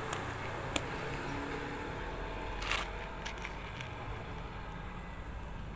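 Cat crunching dry kibble from a plastic tub: a few scattered crunches and clicks, the loudest about two and a half seconds in, over a low steady background rumble.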